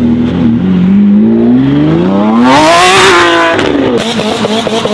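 Lamborghini Aventador SVJ's V12 accelerating hard, its engine note climbing steadily in pitch for about two seconds before breaking off. About four seconds in, it cuts suddenly to a smaller car's engine pulling away with a choppier, crackling note.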